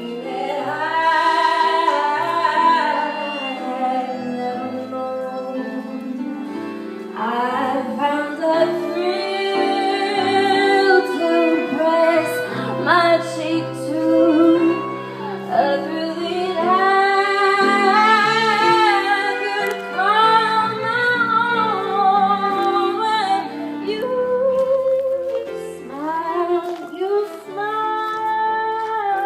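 Music: a woman singing a melody with vibrato over instrumental accompaniment.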